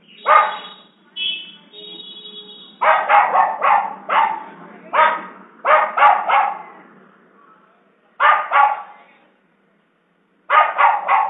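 Stray dogs barking in quick runs of two to four barks, several times over, with a drawn-out higher cry about two seconds in.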